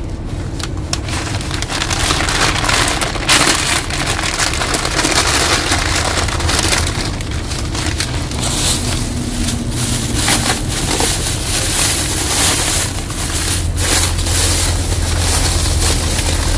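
Newspaper and plastic bags rustling and crinkling as they are folded and crumpled by hand to wrap a parcel, in continual irregular rustles.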